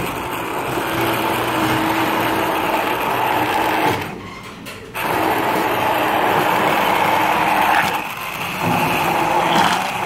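Philips ProMix hand blender running in a stainless-steel cup, puréeing a chunky sauce of sautéed onion, chilli and tomato paste. It runs for about four seconds, stops for about a second, runs again, pauses briefly, then starts once more near the end.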